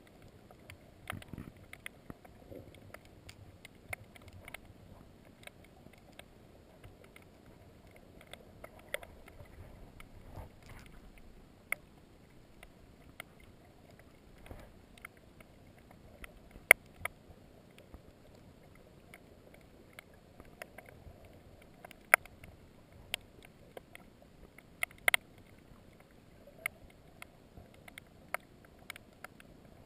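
Underwater sound picked up through a GoPro's waterproof housing: a dull, muffled low rush of water with irregular sharp clicks and ticks scattered through it, a few of them much louder.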